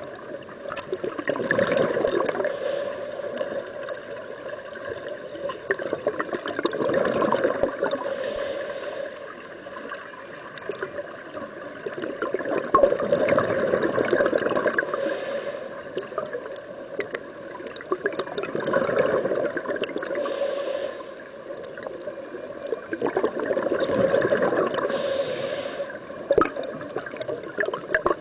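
Scuba diver's regulator breathing heard underwater: a slow cycle about every five to six seconds of a short hiss of inhaled air and a gurgling rush of exhaled bubbles, five breaths in all.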